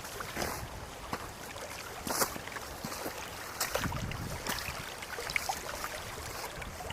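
Wind buffeting the microphone in a low rumble, with scattered irregular crunching clicks.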